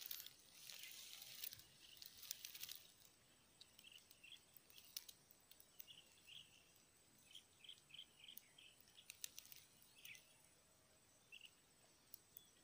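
Quiet outdoor ambience: scattered short, high chirps in small clusters, a few light clicks, and a brief soft rustle in the first few seconds.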